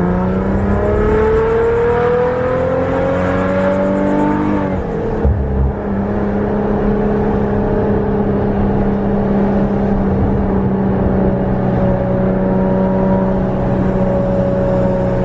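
Maserati engine pulling under acceleration, its pitch rising slowly for about five seconds, then dropping with a shift and settling into a steady drone.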